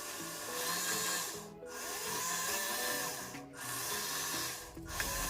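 Electric motor and gear train of a WPL B36 1/16-scale RC truck whirring with a grinding rattle in three throttle bursts of about two seconds each, the pitch rising and falling in each. The grinding is the fault being traced, which the owner suspects is a failing motor or a slipped gear.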